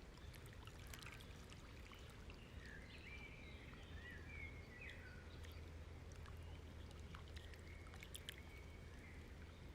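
Near silence: faint room tone with a steady low hum, and a few faint high sliding tones a few seconds in and again near the end.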